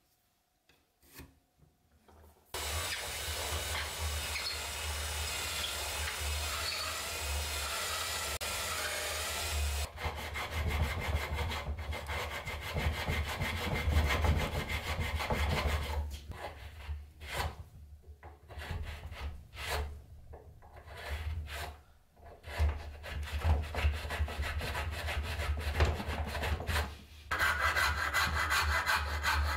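Hand tools working a wooden sword handle. A continuous scraping runs from a few seconds in, followed by repeated rasping strokes with pauses between them. Near the end come even back-and-forth strokes of a flat file across the round wooden handle.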